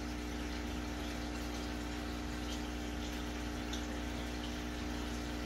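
Aquarium running steadily: a constant low hum from the tank's pump with the even hiss and bubbling of air bubbles rising through the water.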